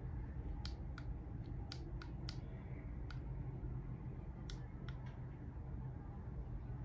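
Irregular sharp clicks and taps from hands handling a Feiyu Vlog Pocket 2 phone gimbal and the phone mounted on it, about eight over five seconds, over a steady low room hum.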